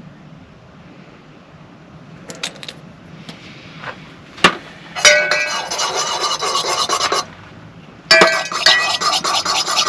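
A long metal bar spoon stirred fast in copper cocktail mugs, a rapid metallic clinking and scraping in two bouts of about two seconds each, the second starting about eight seconds in. A few light clicks and a sharp knock come before.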